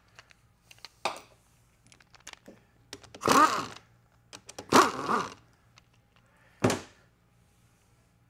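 Power ratchet running a valve body bolt on an automatic transmission, in two short bursts about three and five seconds in, its whine bending in pitch, and a brief third burst near seven seconds. Light clicks of handled parts and tools come between.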